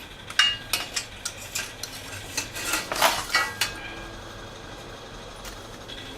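Metal leak-clamp hardware being handled: a quick run of clinks and clanks, some of them ringing briefly, over about three seconds, then it goes quieter.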